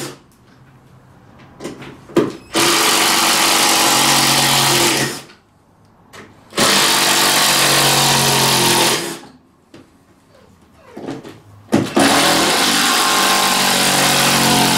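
Cordless drill driving screws into timber floorboards: three runs of steady motor whine of about two and a half seconds each, with short pauses between them, plus the end of an earlier run right at the start.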